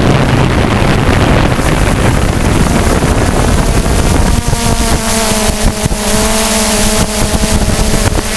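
DJI F550 hexacopter's electric motors and propellers heard from the onboard camera, mixed with heavy wind rumble on the microphone. About four seconds in, the wind rumble eases and a steady multi-tone motor whine comes through clearly.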